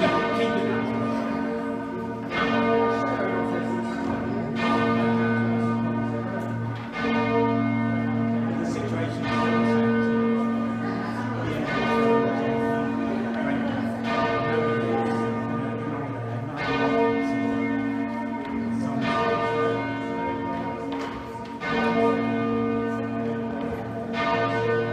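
Exeter Cathedral's ring of twelve heavy church bells (tenor about 72 cwt) rung full-circle: a continuous stream of overlapping bell strikes over a deep, lasting hum from the heavy bells, swelling row by row about every two and a half seconds.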